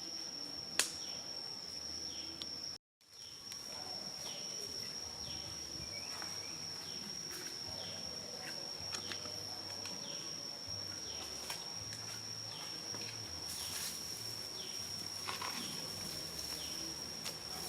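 Outdoor insect chorus: a continuous high-pitched insect drone, with a short falling chirp repeating roughly once a second and a few faint clicks. The sound cuts out completely for a moment about three seconds in.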